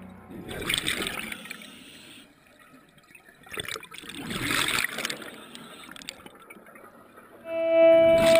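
Scuba diver's exhaled breath bubbling out of the regulator underwater, two bubbly bursts about three seconds apart. Background music comes in near the end.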